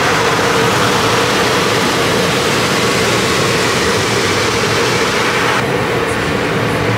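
Automatic car wash spraying water and foam onto the car's roof and windows, heard from inside the cabin as a loud, steady rushing hiss. Near the end the high hiss drops away, leaving a lower rumble.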